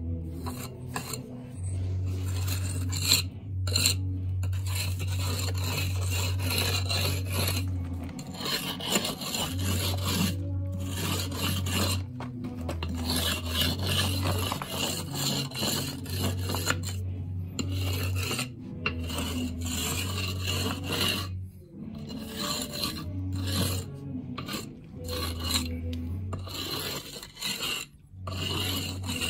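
A steel jointer scraping along fresh mortar joints of a concrete block wall, striking the joints: a gritty rasping in repeated strokes with short breaks between them.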